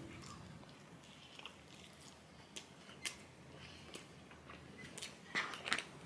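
Faint chewing and mouth smacks of someone eating a slice of soft-crust pepperoni pizza, with a few sharper clicks near the end.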